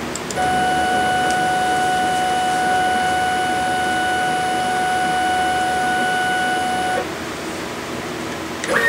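CNC router carving plywood with a V-bit: the spindle runs steadily while a steady pitched whine rides over it as the machine moves through a cut. The whine cuts off suddenly about seven seconds in, and a short second whine comes right at the end.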